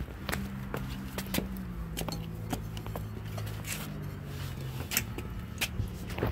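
Footsteps clicking irregularly on pavement and a doormat over a steady low mechanical hum.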